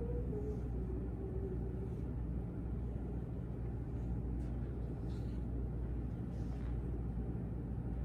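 A steady low rumble, with two soft held musical notes in the first second or so.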